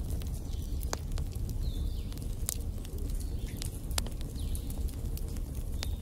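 Log fire crackling: a steady low rumble of flames with scattered sharp pops, about five in a few seconds.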